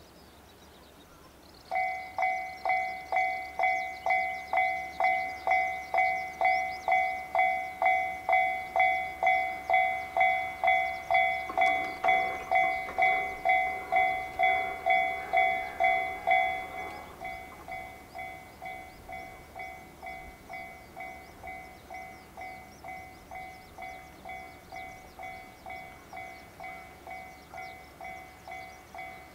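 Japanese railway level-crossing alarm of the newer electronic type, switching on about two seconds in and ringing a two-tone ding about twice a second. About 16 seconds in it drops to a much quieter level and keeps ringing. A faint rushing noise sits under it for a few seconds in the middle.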